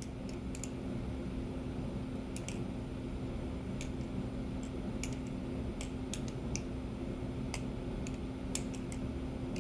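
Kraken-clone balisong (butterfly knife) being flipped: scattered, irregular light clicks as the handles swing and knock against the blade, over a steady low hum.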